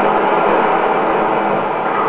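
Steady, even whirring noise with a faint hum in it, unchanging throughout.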